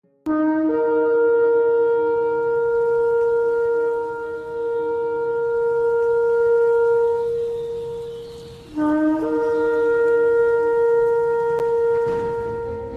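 A shofar sounding two long blasts. Each opens on a brief lower note and steps up to a held tone; the first lasts about eight seconds, and the second starts about nine seconds in and fades near the end.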